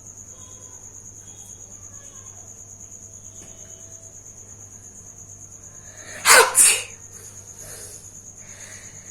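A person blowing their nose hard, two forceful blasts back to back about six seconds in.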